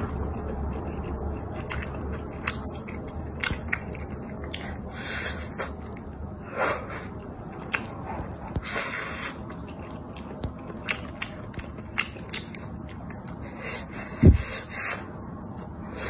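Close-up eating sounds: wet chewing and lip smacking with scattered small clicks, and two longer hissing slurps of wide noodles in spicy stew from about six and a half to nine and a half seconds in. A single loud low thump comes near the end.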